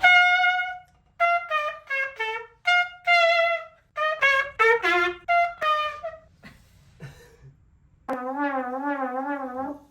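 A brass fanfare, like a royal entrance: one long opening note, then runs of short, quick notes. Near the end comes one long, lower note with a wide wobbling vibrato.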